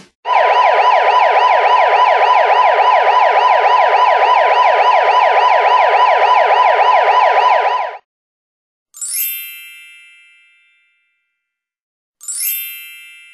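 Police siren ringtone: an electronic siren tone warbling rapidly up and down for about eight seconds before it cuts off. Then come two bell-like dings a few seconds apart, each fading away.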